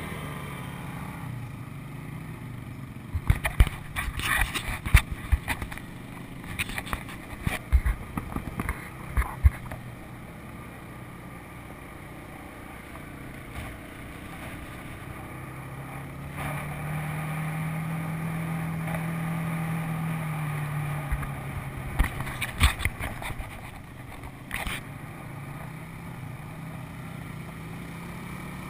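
Four-wheeler (ATV) engine running under way, its pitch climbing and holding higher for several seconds past the middle before easing off. Sharp knocks and rattles come in clusters early on and again later, as the machine jolts over rough ground.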